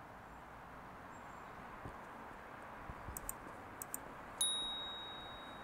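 A single sudden, high-pitched metallic ding about four seconds in, ringing on and fading over about a second. A few faint clicks come just before it over a quiet steady background.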